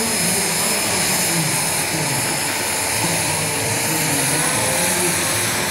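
Model gas-turbine engine of an RC scale Bell JetRanger 206 helicopter running on the ground with a steady high-pitched whine and rush, its rotor turning. A fainter tone rises slowly in the middle.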